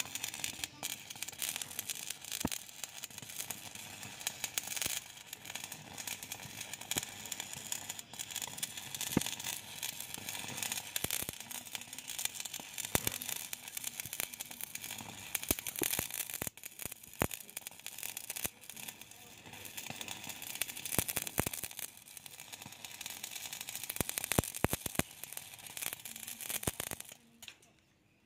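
Stick-welding arc from an inverter welding machine, its electrode burning through steel rebar: continuous crackling with frequent sharp pops, cutting off suddenly near the end when the arc is broken.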